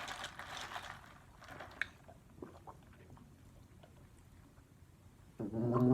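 A person drinking to cleanse the palate between bites: a soft sip in the first second, then a few small faint clicks from the mouth or cup. A short, loud voiced sound comes near the end.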